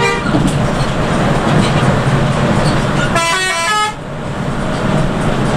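Steady bus engine and road noise heard from inside the driver's cab. About three seconds in, a multi-note bus horn sounds for under a second, stepping quickly through several pitches.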